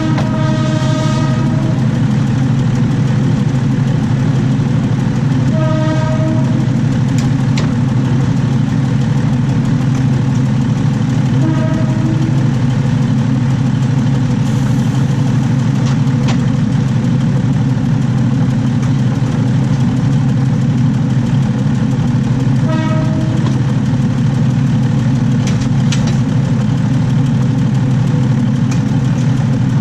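Diesel railcar running along the track, heard from beneath the carriage: a loud, steady, heavy rumble of the running gear and wheels on the rails. A horn sounds four times, a longer blast at the start and then three short toots spread through the rest, and a few sharp clacks cut through now and then.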